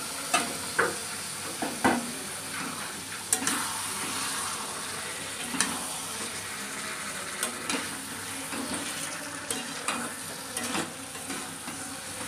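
Marinated chicken sizzling in hot oil and masala in a metal kadai while a steel spatula stirs it, with irregular clinks and scrapes of the spatula against the pan over a steady sizzle.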